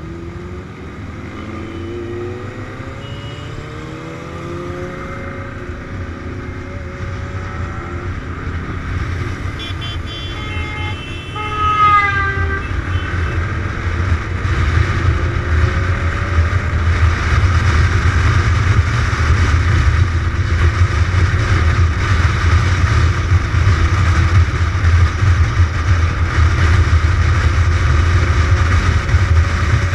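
Motorcycle engine pulling up through the revs as the bike accelerates, with wind rushing over the camera's microphone. The wind noise grows louder and steadier from about twelve seconds in as speed builds. Just before that comes a few brief horn toots.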